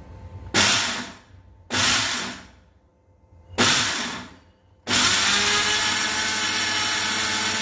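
Panasonic Monster 750-watt mixer grinder's motor pulsed three times in short bursts that each spin up and die away, then running steadily from about five seconds in, dry-grinding whole cumin seeds in the small chutney jar with the spice-grinding lid.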